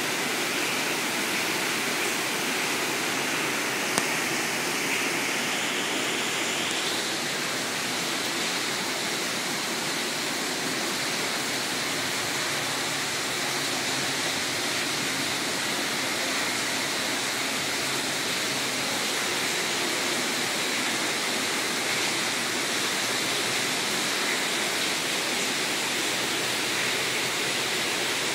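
Steady rushing of turbulent water through a salmon hatchery's fish ladder, with a single sharp click about four seconds in.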